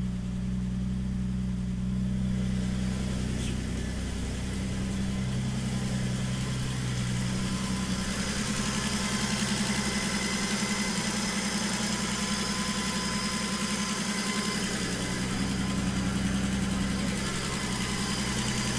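Turbocharged GM L67 3800 V6 idling steadily, heard first from the driver's seat and then over the open engine bay, where more hiss comes through. The idle carries a misfire that the owner hears moments later and traces to cylinders three and six, which he blames on bad plug wires.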